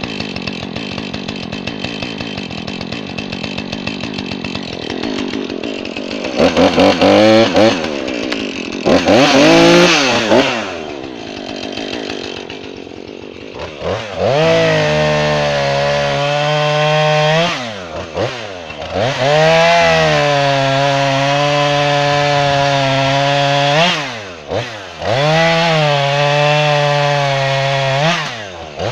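Jonsered 2240 chainsaw idling, revved up twice, then cutting through small red oak tops at full throttle. The engine pitch sags under load in each cut and climbs back when the chain comes free, several times in a row.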